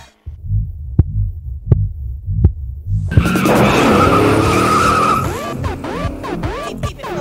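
A low throbbing rumble with three sharp hits, then a car's tyres screeching with the engine for about two seconds. A pulsing electronic beat comes in near the end.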